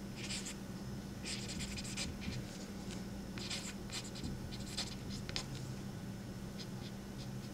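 Pen writing on a trading card as an autograph is signed: short scratchy strokes of the tip across the card's surface, coming in quick clusters with brief pauses between them.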